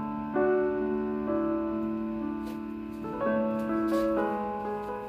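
Background piano music: slow, held notes and chords, a new one struck every second or so.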